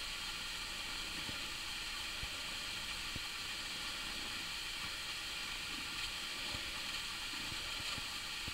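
Steady even hiss of recording noise, with a few faint soft ticks.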